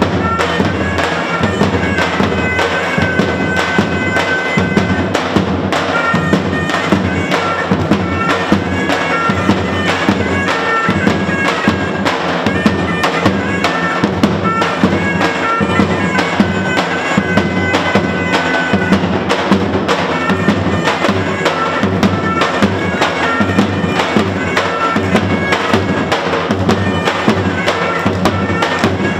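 Surle (zurna) shawms playing a shrill, reedy dance melody over a lodra, a large double-headed drum beaten in a fast, steady rhythm: traditional Albanian wedding dance music.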